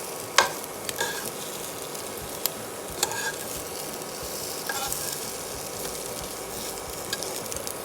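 Egg-dipped bread sizzling in oil in a frying pan, a steady frying hiss with a few short clicks and knocks here and there.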